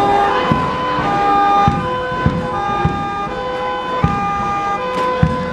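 Marching band music: held wind-instrument chords that change every half second to a second, over irregular drum beats.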